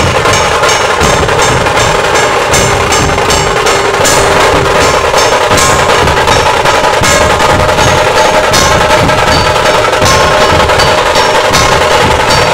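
A dhol tasha troupe drumming: a row of dhol barrel drums beaten with sticks, with tasha drums over them, in a loud, steady, driving rhythm of rapid strikes.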